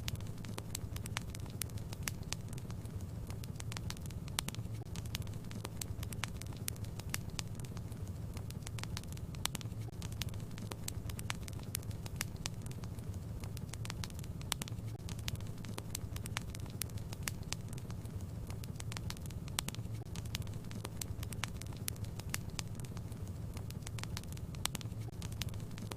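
Fireplace fire burning steadily, with frequent irregular crackles and pops over a low rumble.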